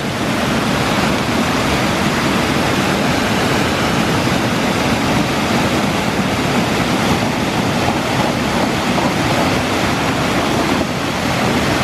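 White water rushing steadily over a low concrete weir, a loud even wash of water noise.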